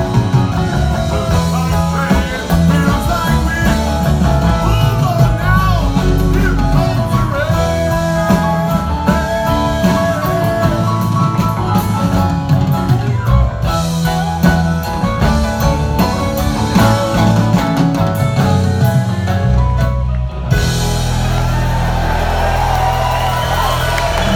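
Live rock band playing: electric guitars, bass and drum kit with singing over them. About twenty seconds in, the band settles onto a held closing chord and crowd cheering rises over it.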